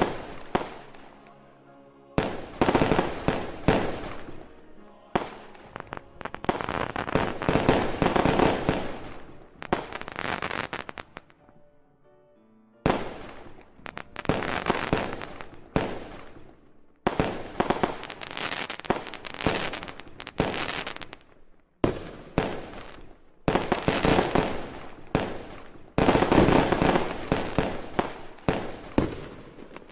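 Aerial fireworks display: shells bursting one after another in quick clusters, each sharp report trailing into crackles, with a brief lull about twelve seconds in.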